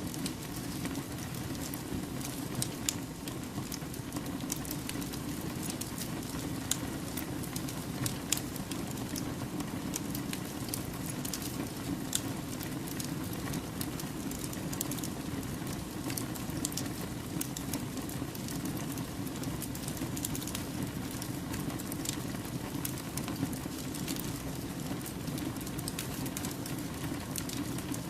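Wood fire burning, with a steady low rumble and frequent sharp crackles and pops from the burning logs.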